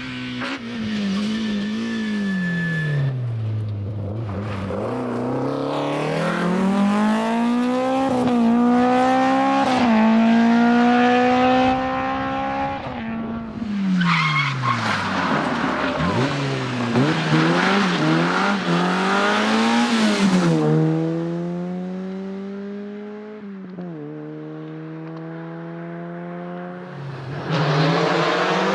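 Rally car engine revving hard on a special stage. The pitch climbs through the gears and drops sharply at each shift and on lifting off. Near the end another loud engine comes in.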